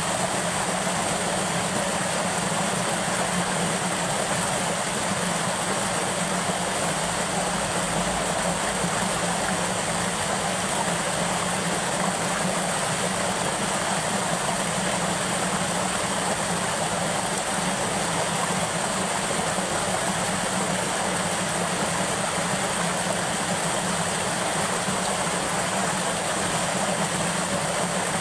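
Shallow water rushing steadily down a concrete spillway, a constant, even rushing noise.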